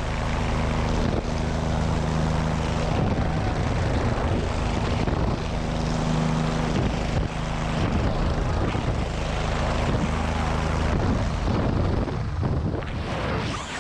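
Helicopter rotor and engine in flight heard from just beneath the aircraft, a steady low drone under heavy rushing wind on the microphone. Near the end the drone fades and the rushing wind takes over as the jumpers drop away into freefall.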